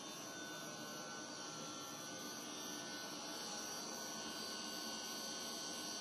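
Steady hum of running machine-shop machinery, with several faint constant high tones over it and no sudden sounds.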